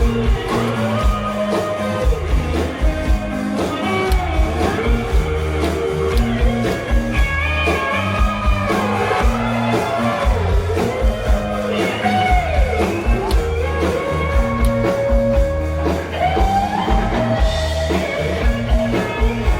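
Rock band playing live: electric slide guitar with notes that bend up and down, over bass and a steady drum beat.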